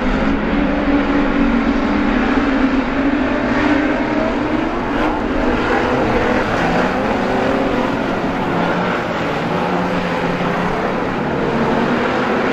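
A pack of street stock race cars running together on a dirt oval. Several engines sound at once, their pitches overlapping and rising and falling through the turns.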